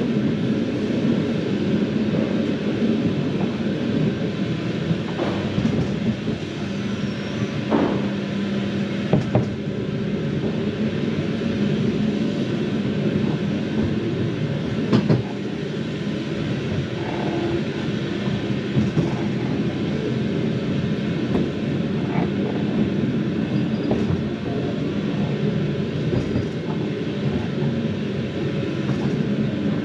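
Ghost train ride car rolling along its track: a steady rumble with occasional sharp knocks and clatters.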